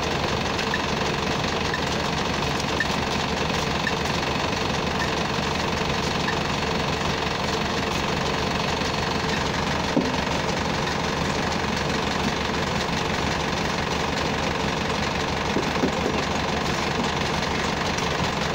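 An engine running steadily, with a single sharp knock about ten seconds in.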